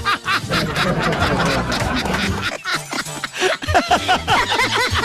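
Several voices snickering and chuckling in short rising-and-falling bursts over a steady background music bed.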